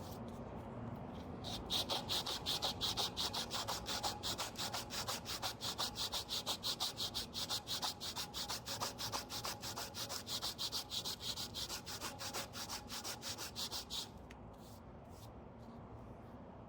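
Hand sanding with rapid back-and-forth strokes, about four or five a second, stopping abruptly about fourteen seconds in.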